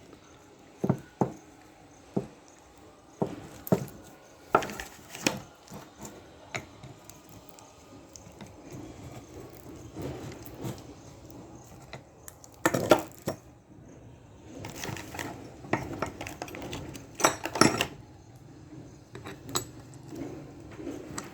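Metal tools and scooter brake parts clinking and knocking as they are handled and set down, in scattered separate knocks, with a louder clatter a little past halfway and again toward the end.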